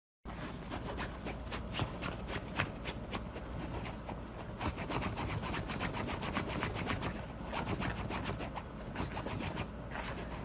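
A pug digging at a couch blanket, its paws rapidly scratching and rubbing the fabric in quick, dense strokes.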